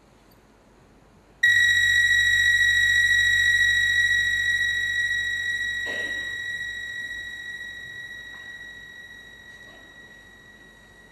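A high, steady electronic tone with a low hum beneath it, starting abruptly about a second and a half in and then slowly fading away.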